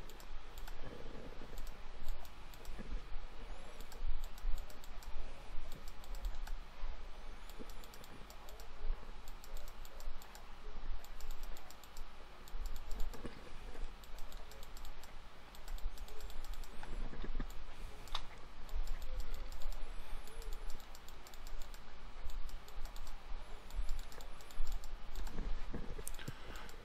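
Irregular clicking and tapping of a computer keyboard and mouse, over a steady low hum.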